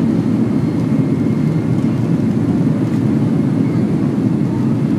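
Steady, loud rumble of jet airliner HS-TAY's engines and rolling noise, heard from inside the cabin over the wing as the aircraft moves along the ground.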